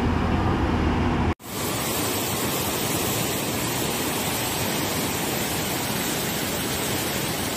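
Muddy floodwater rushing. The sound cuts out abruptly about a second and a half in and comes back as the steady, even rush of a river in spate.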